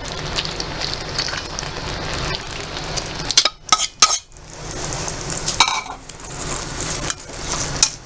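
A pot of fish and vegetables in coconut milk sizzling on the heat, with a few sharp clacks of a utensil or lid against the pot about three and a half to four seconds in and again near six seconds.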